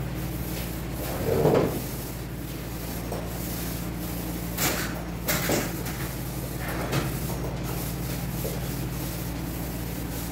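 Paint rollers rubbing over a wall, with a few short, louder scraping rubs, over a steady low hum.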